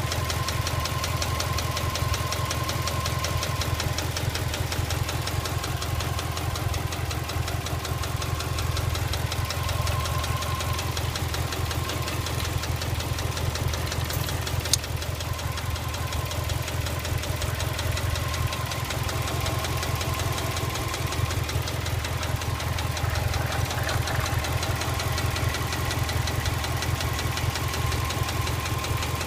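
Subaru EJ206 boxer four-cylinder engine idling with a steady, rapid knock, the fault under diagnosis. A single sharp click about halfway through.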